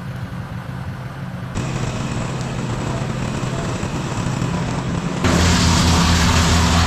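Engine of a work machine running steadily at a low pitch. It gets abruptly louder about a second and a half in, and again about five seconds in, where a strong hiss joins the engine note.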